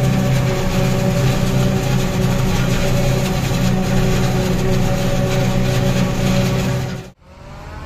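John Deere self-propelled forage harvester running under load as it cuts and chops standing maize: a loud, steady engine drone under a dense rushing of the cutting and chopping. It cuts off suddenly near the end, and a quieter engine sound follows.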